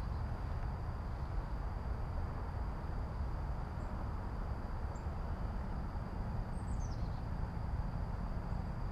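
Outdoor ambience by a pond: a steady high insect drone over a low steady rumble. A bird gives a short falling whistle about seven seconds in, with two faint chirps a little before it.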